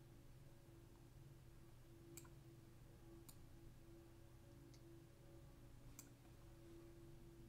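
Faint computer mouse clicks, four separate ones a second or so apart, over a low steady hum.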